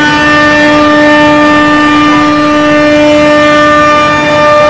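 Woodmaster CNC curved drawer-side groove milling machine giving off a loud, steady, high-pitched whine at a fixed pitch.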